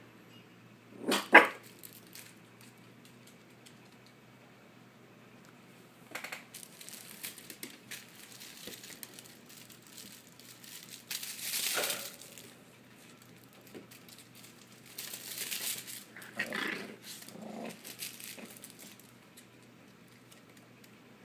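Small dogs sneezing: several short, sudden bursts with quiet between, the loudest about a second in.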